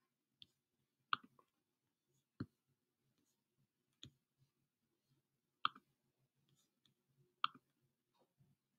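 Computer clicks: about six sharp single clicks, spaced a second or two apart, against a faint steady hum.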